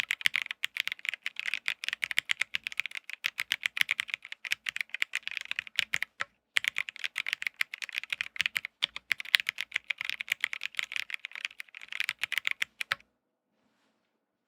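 MonsGeek M1 mechanical keyboard with Akko CS Sakura switches on a POM plate being typed on quickly, a steady stream of key clacks. There is a short pause about six seconds in, and the typing stops about a second before the end.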